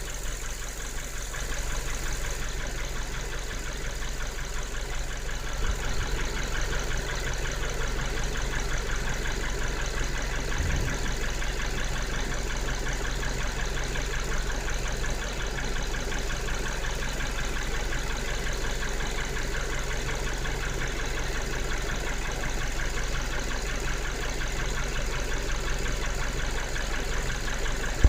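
Engine idling steadily, its oil dosed with both parts of Kure's DUALUB two-part premium oil additive.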